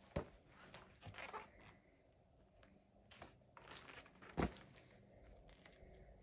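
Paper pages of a picture book turning and rustling as the book is handled and lifted, with scattered light clicks and one sharper knock about four seconds in.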